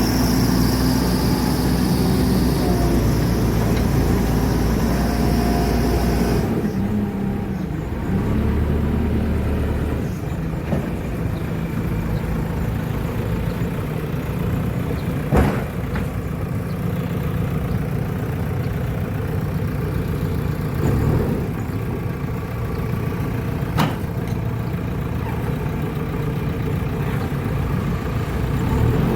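Backhoe loader's diesel engine running steadily, its sound changing about six seconds in, with two sharp knocks later on.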